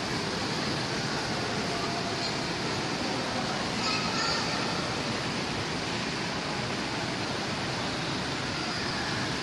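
Shopping-mall ambience: a steady wash of noise with faint, indistinct voices in the distance.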